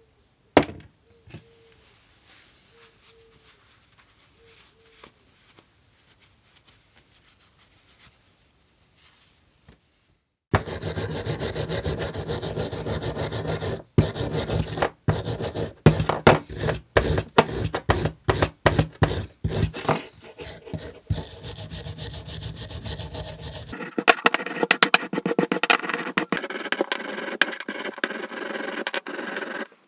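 Hand abrading of an old planishing hammer: a few light clicks, then about a third of the way in, fast, uneven rubbing and scraping strokes. Near the end these give way to a denser, brighter scraping.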